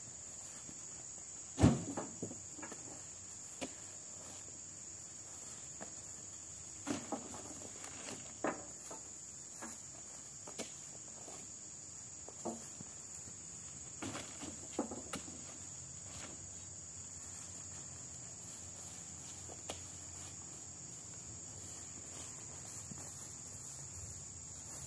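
Steady high-pitched insect drone throughout, with scattered thumps and rustles from a man lifting and carrying a heavy oil palm fruit bunch; the loudest thump comes about two seconds in.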